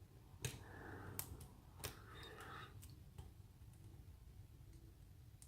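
Faint metallic clicks and light scraping of a hook pick working the pins of a pin-tumbler lock under tension, with three sharper clicks in the first two seconds.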